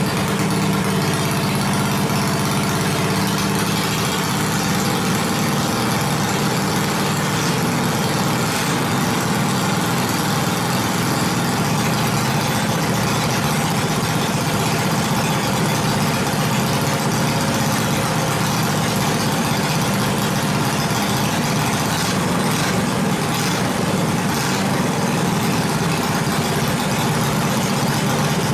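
A homemade dual-engine go kart's 212cc Tillotson single-cylinder four-stroke engines idling steadily.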